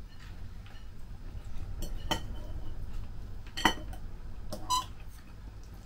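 A metal fork clinking against a plate about four times, the sharpest clinks about three and a half and four and a half seconds in, over a steady low hum.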